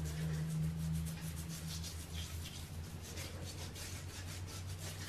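Hands rubbing a sugar-and-oil scrub over each other's skin in circular movements: a continuous scratchy rubbing, with a low steady hum underneath.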